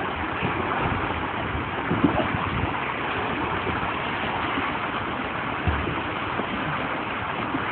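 Steady rush of fast-flowing river water in a canoe chute, with splashing as people clamber onto an inflatable air mattress.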